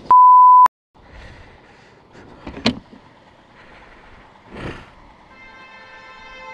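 A loud, pure, high censor bleep lasts about half a second and cuts off into a moment of dead silence. Low traffic noise follows, with a sharp knock about two and a half seconds in. From about five seconds in a vehicle horn sounds steadily.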